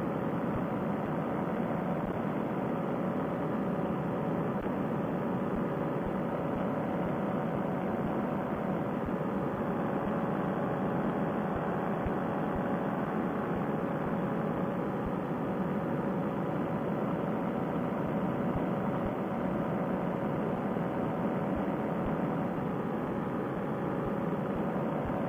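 Paramotor trike's engine and propeller running at steady cruise power in flight: a constant, unchanging drone.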